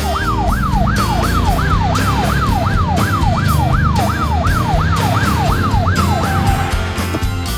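Emergency-vehicle siren sound effect wailing in rapid sweeps, about three a second, each rising quickly and falling back, then ending on a short steady tone near the end. Background music with a steady beat plays underneath.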